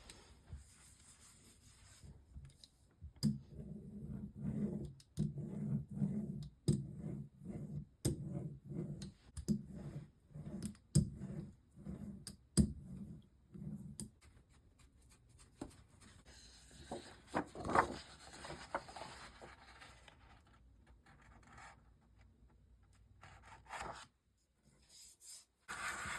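Rubbing strokes in kitchen lithography: a run of rhythmic back-and-forth strokes, about three every two seconds, lasting some ten seconds. Then a few sharper, scratchier scrapes, trailing off into faint rustling.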